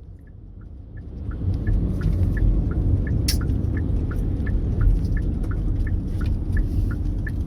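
Rumble of a Hyundai NF Sonata LPG car heard inside the cabin, swelling about a second in. Through it the turn-signal indicator ticks steadily, about three ticks a second, and there is a single sharp click around the middle.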